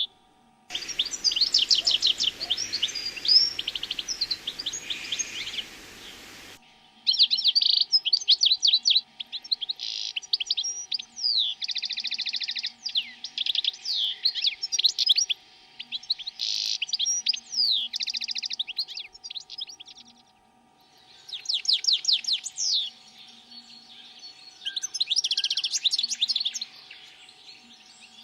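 Small songbirds chirping and twittering in quick high phrases, with rapid trills and buzzy runs, breaking off briefly about two-thirds of the way through.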